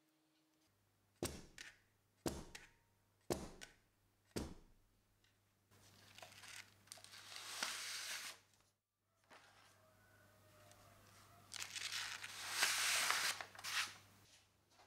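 A metal baking tray of piped macarons knocked on the table four times, about a second apart, to knock out air bubbles. Then the paper templates are slid out from under the parchment in two long papery scrapes, the second the louder.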